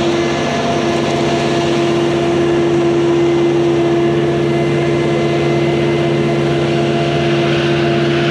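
Concrete pump truck's diesel engine running steadily at a constant high speed while it drives the pump, a loud even drone with a strong fixed hum.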